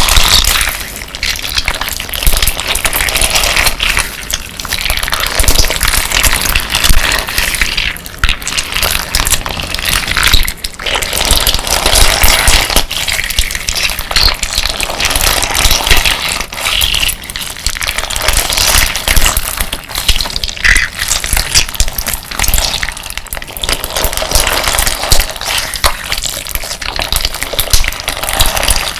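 Slime mixed with amber crystal-glass decorative stones being squished and kneaded by hand. Wet squelching mixes with the glass pieces grinding and clicking against each other, in uneven swells every second or two.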